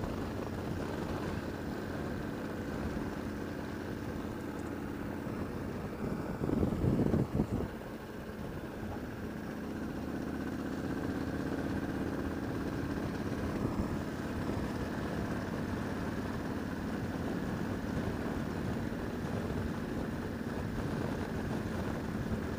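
Motorcycle engine running steadily while riding, with a brief louder rush of low noise about six to seven seconds in.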